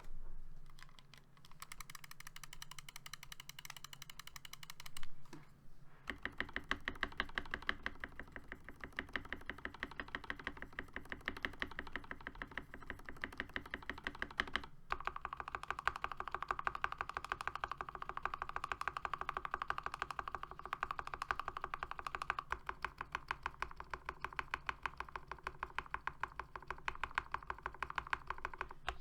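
Rapid, continuous typing on a Keychron K8 mechanical keyboard fitted with hand-lubed Momoka Frog switches, PBT doubleshot keycaps, a silicone pour and PE switch pads. There is a louder knock about five seconds in and a very short break in the typing near the middle.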